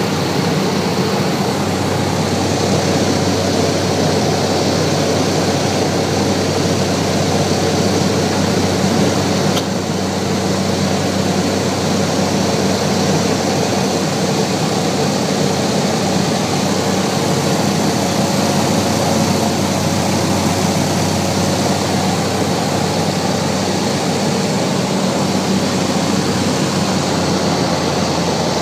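Single-engine propeller airplane's engine and propeller droning steadily at an unchanging pitch, heard from inside the cockpit.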